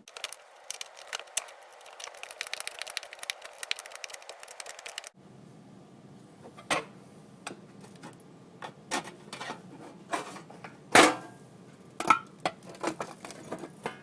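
Sheet-metal surplus ammunition tin being cut open with its lever can opener: rapid clicking and crunching for about five seconds, stopping suddenly. Then scattered metallic clicks and knocks follow, the loudest about eleven seconds in.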